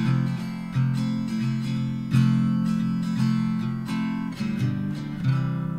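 Background music of acoustic guitar strumming chords, about one strum a second, the last chord left ringing near the end.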